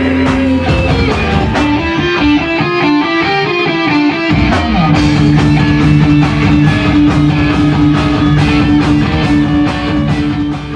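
Rock music: electric guitar playing a melody over bass and a steady beat, the low end dropping out briefly about four seconds in.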